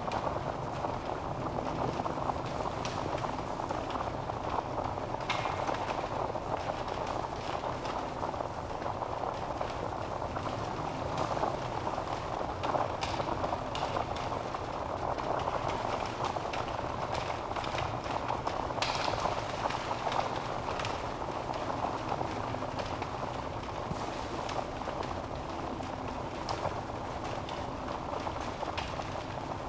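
Logs burning in a fireplace: a steady rushing hiss of flames, with scattered crackles and pops from the wood at irregular moments.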